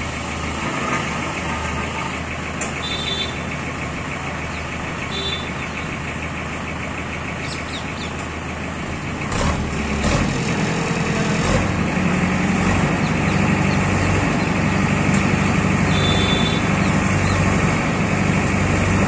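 Tractor's diesel engine running steadily, with a short clank about halfway through, after which the engine runs louder and deeper.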